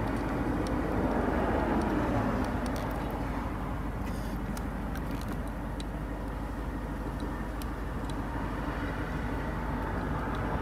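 Steady low outdoor background rumble, with a few faint light ticks over it.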